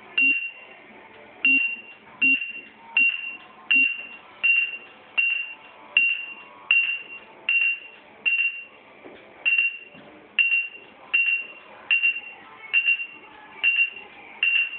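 Proliner 3D digitizer beeping as its stylus is touched along the cabinet edge, each short high beep logging a point. The beeps repeat about every three-quarters of a second, with one slightly longer gap past the middle.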